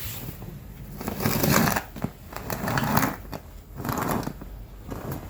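Snow being crunched or scraped in four noisy bursts roughly a second apart.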